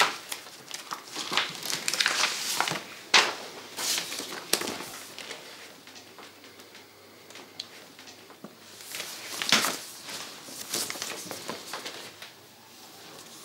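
Sheets of paper rustling and shuffling in short bursts as a stack is leafed through, dense at first, sparse in the middle, with another run of rustles about nine to ten seconds in.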